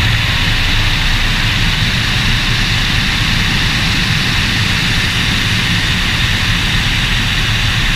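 Steady rush of wind and road noise on a camera mounted on the outside of a moving car, with a low rumble underneath and no change in pitch.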